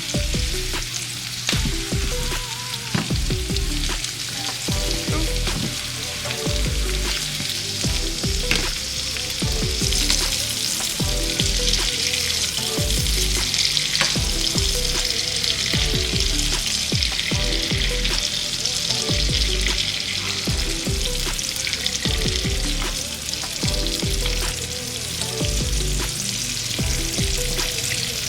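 Food sizzling in a hot frying pan, the sizzle growing louder about ten seconds in, with short clatters of stirring. Background music with a bass line plays over it.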